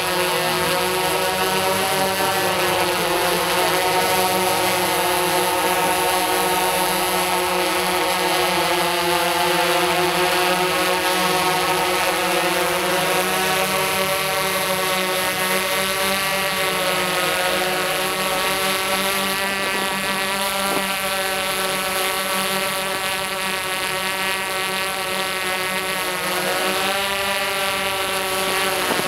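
Tarot X8 octocopter's eight motors and DJI 1552 propellers humming steadily in flight, a layered whine of several rotor tones that drift slightly up and down in pitch as the flight controller adjusts their speeds.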